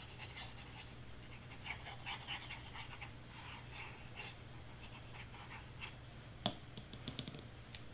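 Faint scratching and rustling of a squeeze glue bottle's nozzle dabbing glue onto small cardstock pieces as they are handled, over a steady low hum. A sharp tap comes about six and a half seconds in, followed by a few small clicks.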